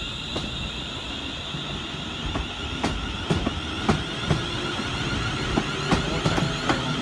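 TransPennine Express electric multiple unit moving slowly past, its wheels clicking and knocking over rail joints and pointwork over a low rumble, the clicks starting about two and a half seconds in and coming more often as it goes.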